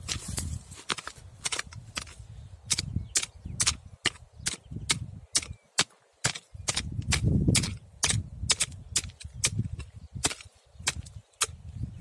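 Short-handled hand hoe chopping into earth, about three quick strikes a second. Each blow is a sharp click with a dull thud of loosened soil.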